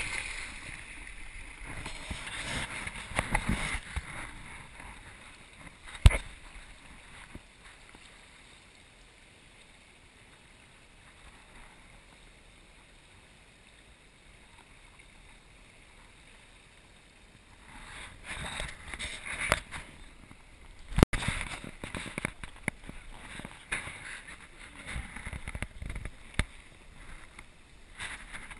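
River water rushing and splashing, loudest near the start and again in the second half, with a quiet stretch between and two sharp knocks.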